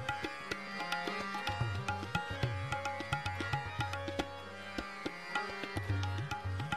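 Background music in Indian classical style: an instrumental passage with a brisk tabla rhythm under a melodic line, with no singing.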